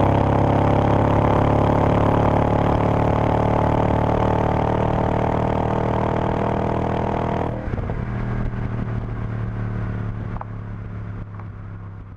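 2003 Audi S4's 4.2-litre V8 running through a Milltek Sport exhaust at steady revs under load; about seven and a half seconds in the throttle is lifted and the engine note gets quieter, then fades out near the end.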